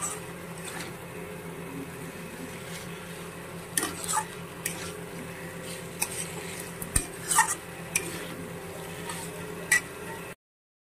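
Metal spatula scraping and clinking against a steel kadai as potato chunks in masala are stirred and fried, with a light sizzle and a steady low hum underneath. The sound cuts out completely for a moment near the end.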